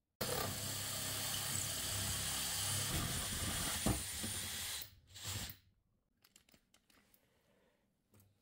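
Cordless drill spinning a bimetal hole saw through plywood, a steady motor hum under a loud gritty cutting hiss, with one sharp knock near four seconds in. It stops about five seconds in, gives one short burst, then only faint clicks follow.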